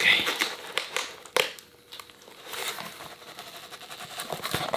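Paper and cardboard packaging crinkling and rustling as a paper mailer and a small cardboard box are handled and opened by hand, with a sharp click about a second and a half in.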